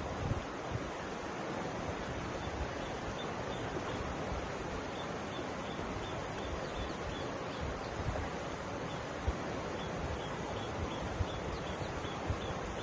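Mountain river flowing steadily, a continuous even rush of water, with wind buffeting the microphone in low rumbles now and then.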